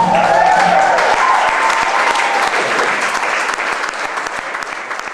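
Audience applauding, with cheering whoops over the clapping in the first couple of seconds; the applause then gradually dies down.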